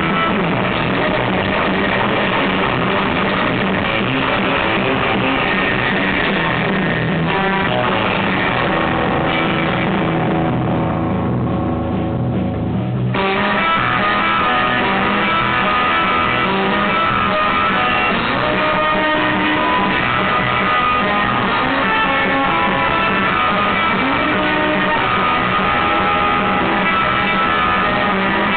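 Live surf rock band playing loudly, led by a Fender Stratocaster electric guitar over bass and drums. The sound thins out about ten seconds in and the full band comes back in sharply about thirteen seconds in.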